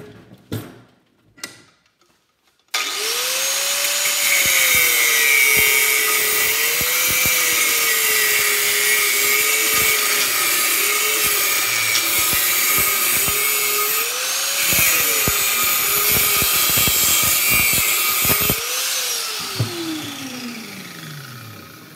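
Electric angle grinder cutting into the side of a magnetron held in a vise. It starts suddenly about three seconds in after a few knocks, and its motor pitch dips and recovers as the disc bites under load. Near the end it is switched off and winds down in a falling whine.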